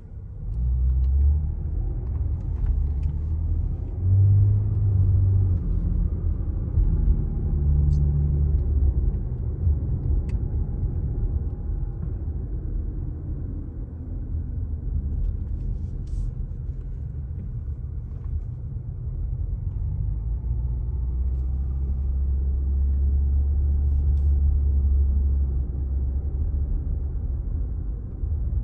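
A car's engine and road noise heard from inside the cabin while driving slowly: a steady low rumble that swells for stretches and eases between them.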